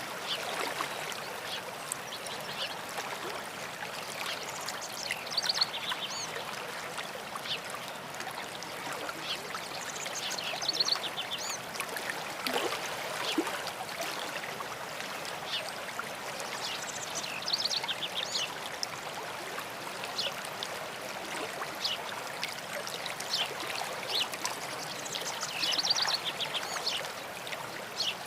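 A stream running steadily, with songbirds singing over it: a high trilled song phrase repeated four times, every five to eight seconds, and scattered short chirps in between.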